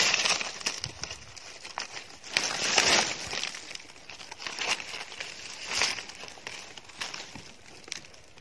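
Dry leaf litter rustling and crackling in irregular bursts, louder at the start, about three seconds in and about six seconds in.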